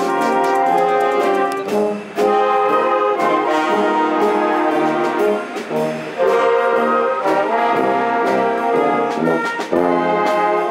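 Wind band playing: brass and saxophones in full sustained chords over a tuba bass line, with brief breaks between phrases.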